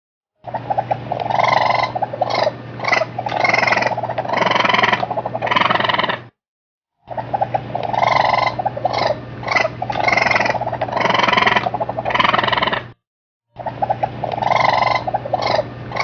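Raccoon calls: a chattering, trilling series of vocalisations over a steady low hum. The same roughly six-second recording plays three times, with brief silences between the repeats.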